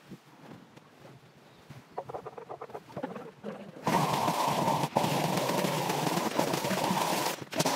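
Faint rustling for the first half, then about halfway a string trimmer suddenly comes in loud, running steadily as it cuts long grass.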